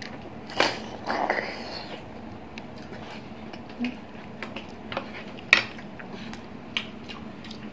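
Close-up eating sounds of balut (duck embryo egg): a wet slurp about half a second in and another longer slurp around a second in, then scattered sharp clicks and taps of eggshells being handled, the loudest about five and a half seconds in.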